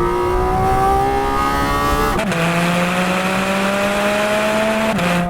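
Porsche 4.0-litre naturally aspirated flat-six engine accelerating hard, its pitch climbing with the revs. It shifts up about two seconds in, the pitch dropping at once before climbing again, and there is another shift near the end.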